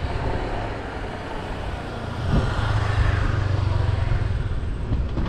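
Strong wind buffeting the microphone with a rushing noise. A low, steady engine-like drone joins about two seconds in.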